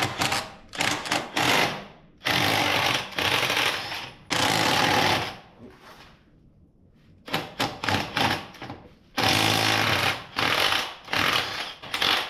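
Impact wrench hammering in repeated short bursts, the longest about a second each, with a pause in the middle.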